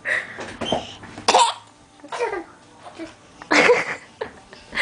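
Baby sneezing, several short, sharp bursts with quieter gaps between them; the loudest come about a second and a half and three and a half seconds in.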